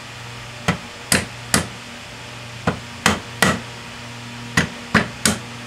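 Mallet tapping a part into place on a South Bend lathe gearbox: nine sharp taps in three groups of three, about two or three a second within each group. A steady low hum runs underneath.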